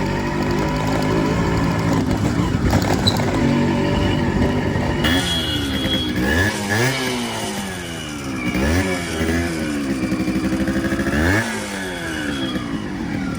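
Modified Yamaha RX100's two-stroke single-cylinder engine running steadily, then from about five seconds in revved in repeated blips, its pitch rising sharply and falling back several times.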